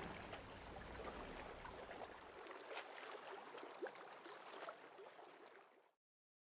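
Faint sea ambience of water lapping and splashing, which fades out and cuts off completely a little before six seconds in.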